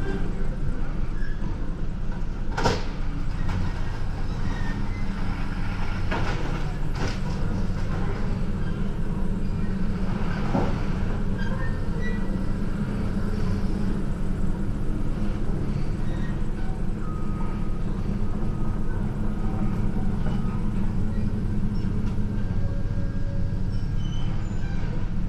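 A heavy engine running steadily with a low rumble, with a few sharp metal knocks over it, around 3, 6, 7 and 10 seconds in.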